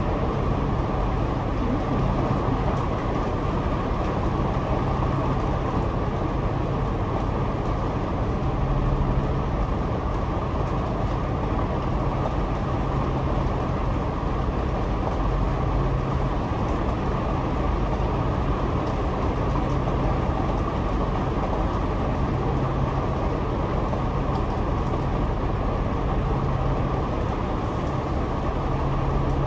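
Double-decker bus running on the road, heard from the upper deck: a steady engine drone with road and cabin noise.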